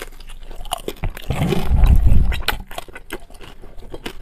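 Close-miked biting and chewing of a pan-fried dumpling, with many small wet mouth clicks throughout. A louder, low, muffled stretch of mouth noise lasts about a second in the middle.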